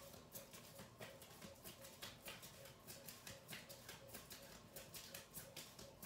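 Near silence: faint irregular clicks, several a second, over a faint steady pulsing tone.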